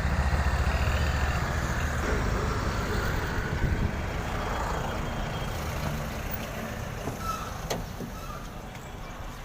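Renault Kwid car engine running with a low rumble that slowly fades, and a single sharp click about three-quarters of the way through.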